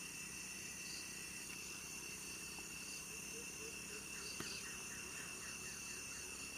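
Steady high-pitched drone of insects with no letup. About four seconds in, a short run of quick, faint chirps sounds over it.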